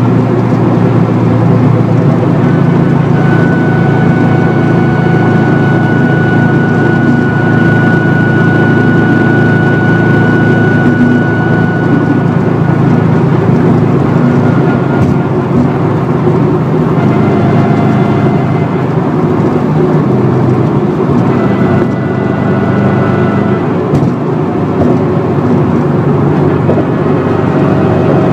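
Steady loud drone of a failed wheel bearing in a 2004 Subaru WRX STI at freeway speed, with the rear differential's whine humming on top, made louder by upgraded bushings and mounts. A thin high tone holds from a couple of seconds in until about halfway.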